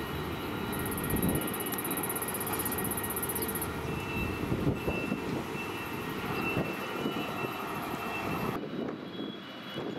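Steady mechanical din of container-port machinery running, with faint steady high whining tones over it. The sound changes abruptly near the end.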